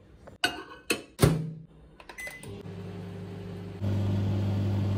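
Microwave oven being set going: a few knocks of the door and handling, a short beep, then a steady electrical hum that jumps louder about four seconds in as the oven starts heating.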